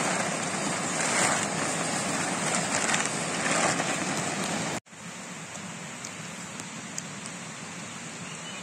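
Steady rush of a nearby stream, with the nylon fabric of a pop-up tent rustling in surges as it is folded. About halfway through the sound cuts off abruptly to a quieter steady rush.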